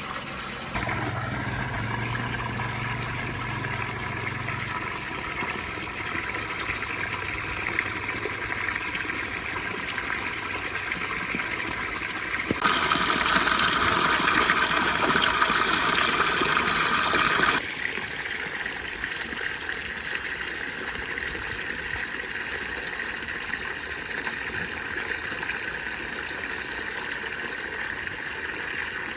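Water running steadily into a pool, a continuous rush that grows louder for about five seconds in the middle.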